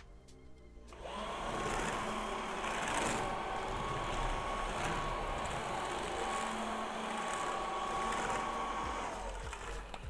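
Xiaomi Mi Vacuum Cleaner Light stick vacuum running steadily: a rush of air with a faint motor whine. It starts about a second in.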